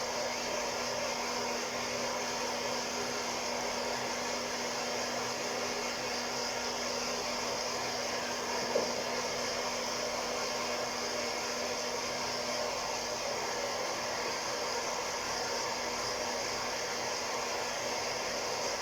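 Hot-air coffee roaster running steadily, its blower and heater giving an even hair-dryer-like rush with a faint steady hum, mid-roast before first crack. A single brief click about nine seconds in.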